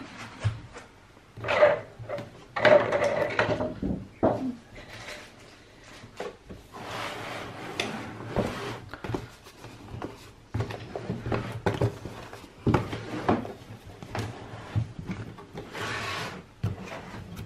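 Cardboard packaging being handled: boxes and lids sliding, rubbing and knocking, in irregular scrapes and thumps.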